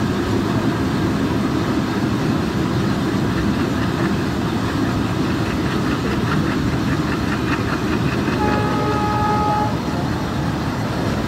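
Passenger train running at speed, heard from beside the coach: a steady, loud rumble of wheels on rails with rushing air. About eight and a half seconds in, a train horn sounds for just over a second.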